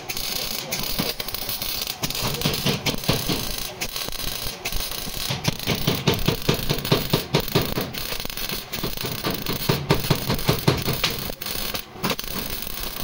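Rapid, irregular knocks and rattling, with a voice faintly underneath.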